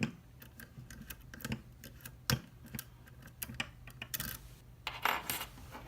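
Irregular light clicks and taps from handling a padlock, with short scraping rustles about four and five seconds in.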